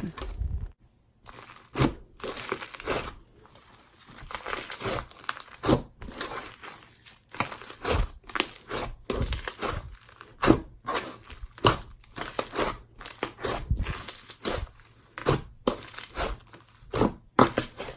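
Lemon-scented snow fizz slime being worked by hand, crunching and crackling with many small irregular pops.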